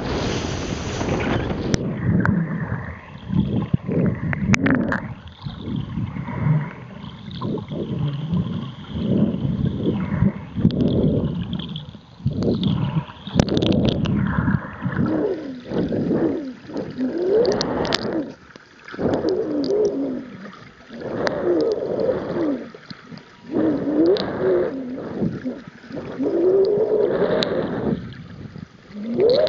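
Humpback whale song heard underwater: moaning calls that rise and fall in pitch, clearest in the second half, over gurgling water noise. A moment of wind on the microphone at the surface comes first.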